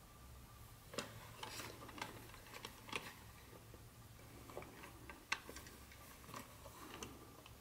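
Faint, irregular clicks and light rustling of a plastic toy train tender being handled and turned over in cloth-gloved hands, its plastic wheel trucks knocking lightly.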